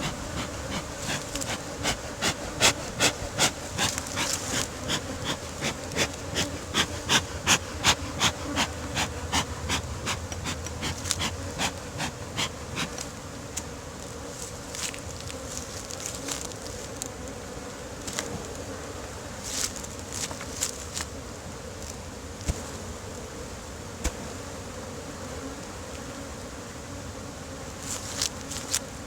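Honey bees buzzing steadily around an opened hive. Over roughly the first thirteen seconds a quick series of short rustling strokes, about two a second, sounds over the buzz, then only a few scattered ones.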